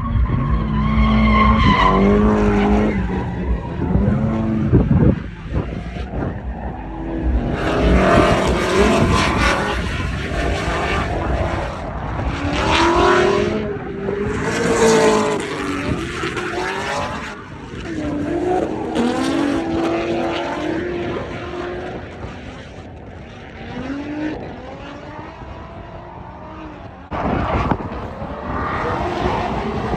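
Drift cars on track: engines revving up and down as they slide, with tyre squeal and skidding noise.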